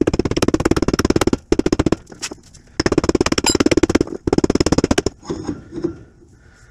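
Rubber mallet striking a tubular seal driver, tapping the fourth gear seal into a Harley four-speed transmission case. Rapid runs of knocks, the first stopping about a second and a half in and two more later with a few single knocks between, and lighter knocks near the end. The blows are meant to keep driving the seal until it sits flush with the case.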